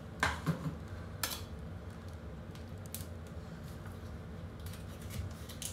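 Kitchen knife clinking on the counter and against a whole lobster, with three sharp clicks in the first second and a half, then faint scattered clicks as the blade cuts into the shell, over a steady low hum.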